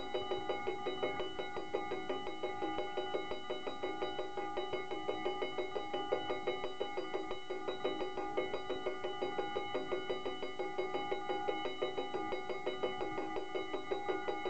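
Dutch AHOB level-crossing warning bell ringing in fast, even strokes, about four or five a second, with a ringing metallic tone. It is the signal that the crossing is closed for an approaching train.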